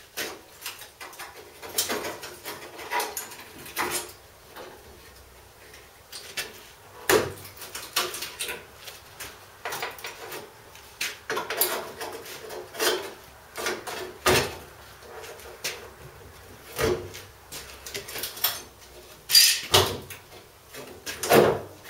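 Sheet-metal scuttle panel of a VW T25/T3 bus being rocked and pulled free by hand after its seams and spot welds were cut: irregular metallic knocks, clatters and scrapes, with the loudest knocks spread through.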